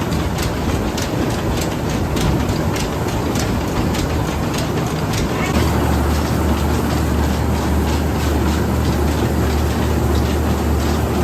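Rice-husking mill machine running with a steady mechanical clatter and about three sharp ticks a second. About halfway through the ticks fade and a deeper low hum comes up.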